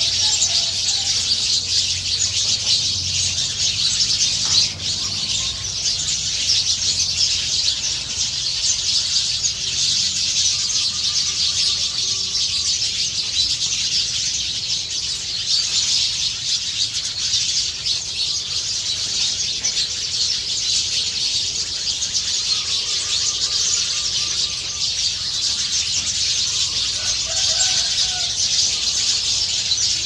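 Many small birds chattering together in the trees: a dense, high-pitched twittering of overlapping calls without a break. A few lower, separate calls stand out now and then.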